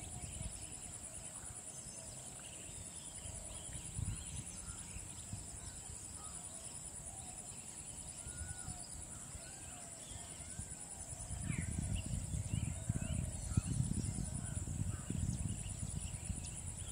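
Grassland ambience: many birds calling in short chirps and warbling notes over a steady high insect drone. A low rumbling noise grows louder about two-thirds of the way in.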